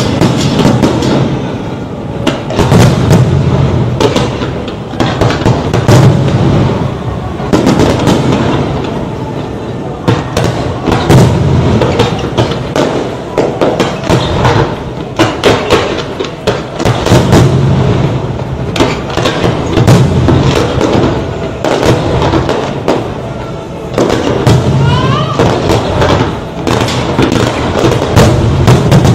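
Fireworks bursting in rapid, continuous volleys of sharp bangs and booms over a low rumble, with music and voices in the mix. A short rising whistle comes near the end.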